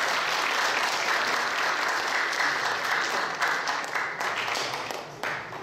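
Congregation applauding, the clapping fading away near the end.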